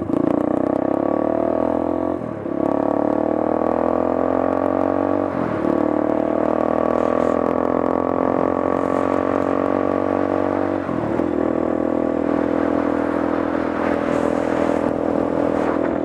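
Motorcycle engine running at road speed, a steady hum whose pitch creeps slowly upward, with brief dips in the note about 2, 5 and 11 seconds in.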